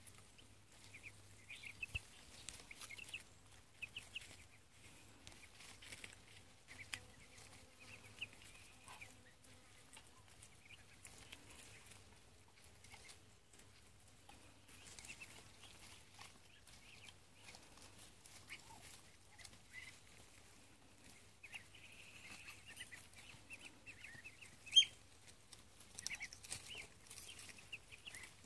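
Faint, scattered high peeping of young poultry, chicks and Muscovy ducklings, as they forage. A single sharp click stands out about 25 seconds in.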